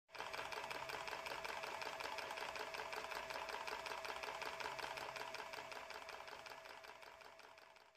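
A small machine running with a fast, even clatter and a steady hum, fading out over the last couple of seconds.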